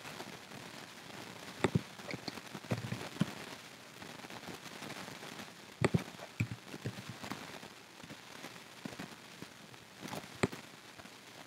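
Irregular clicks and taps of a computer keyboard and mouse as values are typed and fields clicked, over a faint steady hiss. Three sharper clicks stand out: about two seconds in, around six seconds, and near the end.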